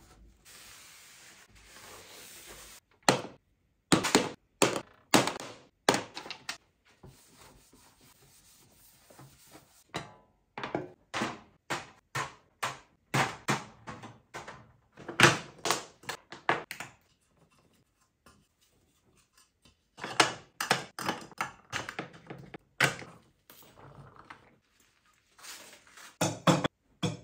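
A steady hiss for about the first three seconds, then repeated thunks and clatter of small objects being picked up and set down on a dressing table as it and its mirror are wiped clean.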